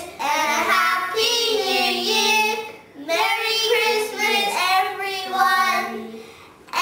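Young children singing a song together, in two sung phrases of about three seconds each with a short break between them.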